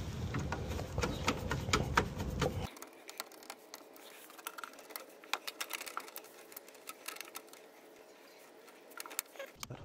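Light clicks and taps of a screwdriver and stiff wire being worked at a circuit breaker's terminal as the wire is tightened down, with a low rumble for the first two and a half seconds.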